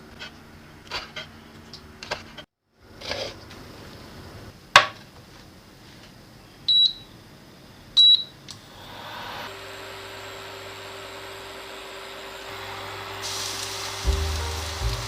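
A few scattered knocks of kitchen work, then two short high electronic beeps from a kitchen appliance, followed by a steady hum and hiss that grows louder near the end.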